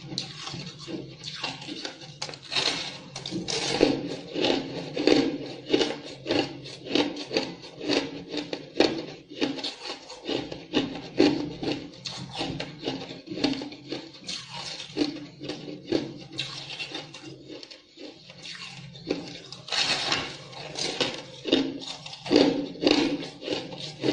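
Ice cubes being chewed and crunched between the teeth close to the microphone, in rapid repeated crunches about three a second, with a few louder bites.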